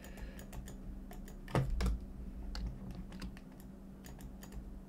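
Computer keyboard keys clicking irregularly, with one louder knock about one and a half seconds in, over a faint steady low hum.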